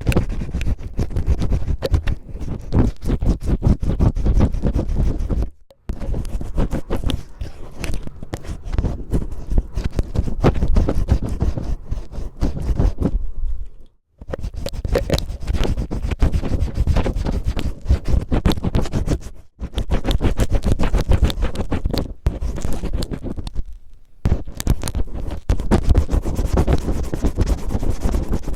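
Cellophane crinkled and rubbed close against the microphone in quick, rough scratching strokes, imitating ear cleaning. The scratching stops briefly four times, about 6, 14, 19 and 24 seconds in.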